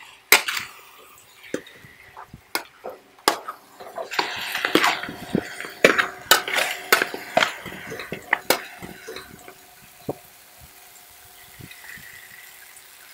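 A metal spoon clinking and scraping against a wok while a chicken and vegetable stir-fry is tossed, with many sharp clanks. It is busiest between about four and nine seconds in and grows quieter near the end.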